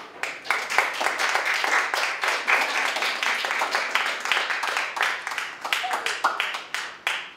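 A small group of people clapping by hand: many irregular claps running together into applause.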